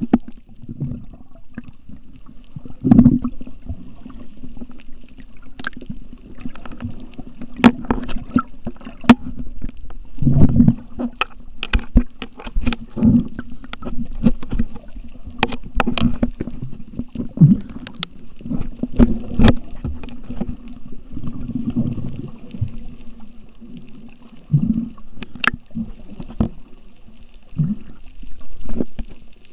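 Muffled underwater sound heard through a camera's waterproof housing: water swishing and gurgling in uneven swells, with many scattered sharp clicks.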